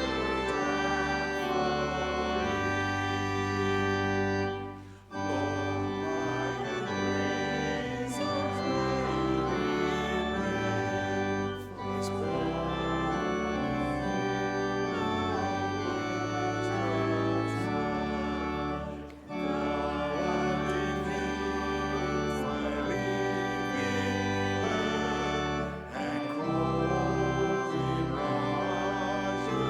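Organ playing slow, sustained chords of a hymn with voices singing along, breaking briefly between phrases about every seven seconds.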